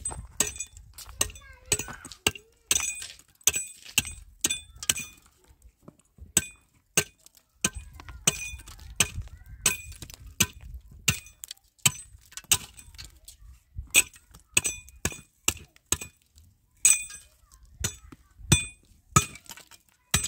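Steel hammer striking hollow concrete blocks to chip and break them. Dozens of sharp, irregular blows come at about two a second, each with a short metallic ring.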